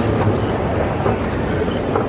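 Steady low mechanical rumble under the general background noise of a busy terminal hall, with a few faint knocks.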